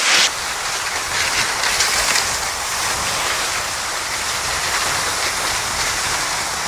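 Skis sliding over snow at speed with a steady hiss, pulled along by a dog.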